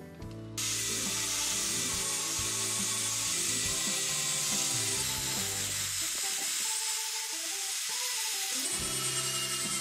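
Angle grinder with an abrasive disc grinding rust off a steel sword tang: a steady, loud hiss that starts suddenly about half a second in.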